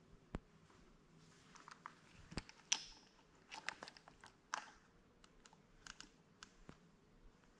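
Faint handling noise: scattered small clicks, taps and brief rustles as a camera is handled and readied close to the microphone, the loudest click about a third of the way in.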